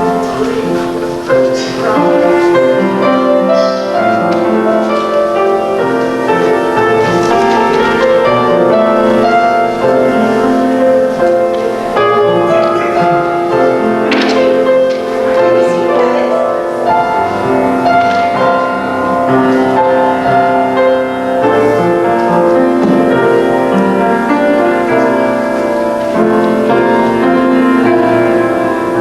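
Slow instrumental keyboard music, chords held and changing every second or two.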